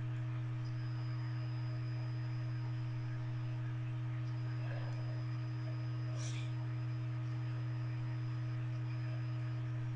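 Steady low electrical hum with weaker overtones, and a faint high-pitched whine that cuts out and returns every few seconds; no sneeze is heard.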